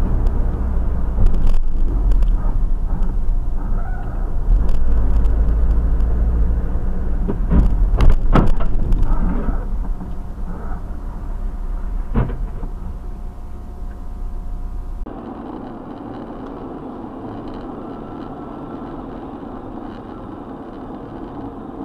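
Dashcam recording of a vehicle driving on a highway: loud low road and engine rumble, with a few sharp knocks about a third and halfway through. About two-thirds of the way through it cuts to a quieter, steady road noise.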